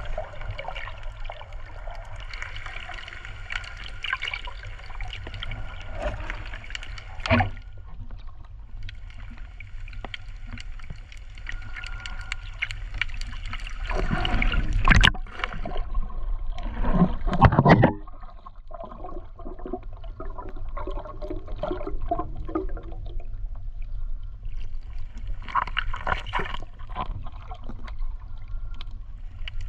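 Underwater sound picked up by a camera in a waterproof housing while snorkelling: muffled gurgling and sloshing water over a steady low rumble. There are louder rushes of water about halfway through.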